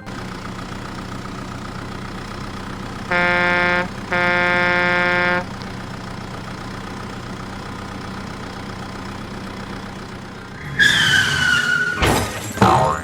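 Cartoon vehicle sound effects: an engine running steadily, with two horn honks, a short one about three seconds in and a longer one right after it. Near the end come louder sound effects: whistling tones that fall in pitch, and a noisy swoosh.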